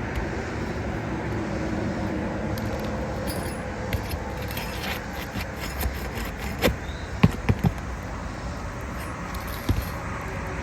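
Sharp metal clicks and scrapes of a tool pulling roofing nails out from under a shingle, several in quick succession about two-thirds of the way through and one more near the end, over a steady background rush.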